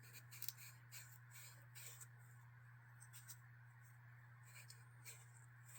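Faint scratchy rubbing of a Nevr-Dull polishing wad on a metal knife liner, in soft irregular strokes, over a steady low electrical hum.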